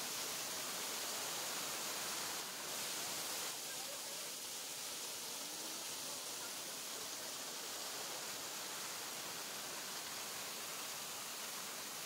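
Waterfall: a steady rush of water falling down a rock face, a little quieter after about three and a half seconds.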